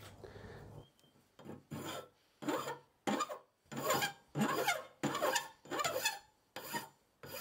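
Hand file rasping back and forth across a small, soft zinc ball-bearing housing held in a vise, filing a curve into its side. About ten short strokes, roughly one and a half a second, starting about a second in.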